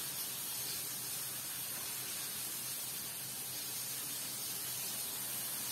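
Steady sizzling hiss of carp frying in oil in a pan.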